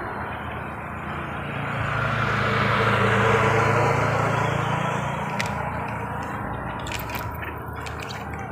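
A motor engine passing by, swelling to its loudest about three seconds in and then fading, over a steady outdoor background. There are a few faint clicks near the end.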